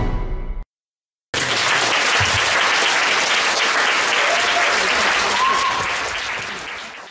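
Stage music cuts off about half a second in, and after a brief gap an audience applauds, the clapping fading away toward the end.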